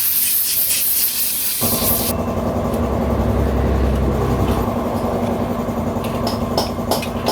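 A spray of aerosol cleaner hisses for about the first second and a half while the starter motor parts are cleaned. Then a motor starts and runs steadily with a low hum, with a few light clicks near the end.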